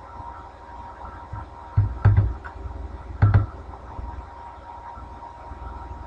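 Computer mouse clicks, a quick pair of clicks about two seconds in and one more about a second later, over a steady background hum with a faint steady tone.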